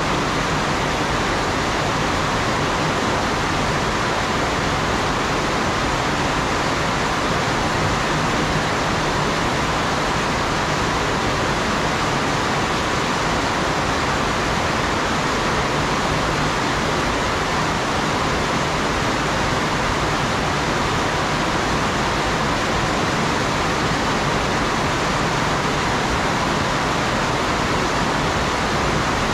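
Heavy rain pouring steadily, an even dense hiss without breaks or thunderclaps.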